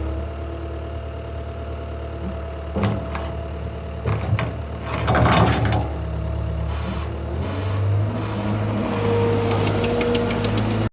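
Skid steer engine running steadily, with its pitch shifting about two-thirds through. Several sharp metal clanks come near the middle as the bucket is set down onto the land plane and locked in.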